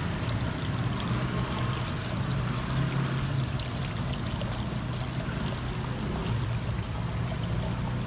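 Water from a small rock waterfall splashing steadily into a garden fish pond.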